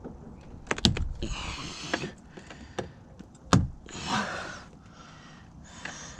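Plastic trim rivet clips being pushed into a car door panel: a few sharp snaps and knocks, the loudest about three and a half seconds in, between rustling scrapes of plastic.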